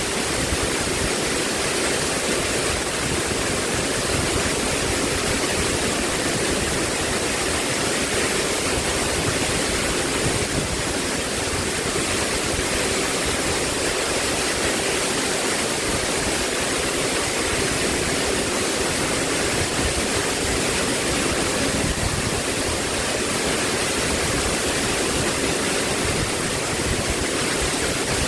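Steady, unbroken rushing of water.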